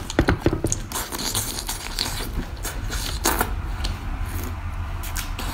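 Close-up wet mouth sounds of someone eating raw geoduck clam from the shell: sucking, slurping and chewing on the siphon, with many short smacks and clicks, busiest in the first second and with one louder smack about three seconds in.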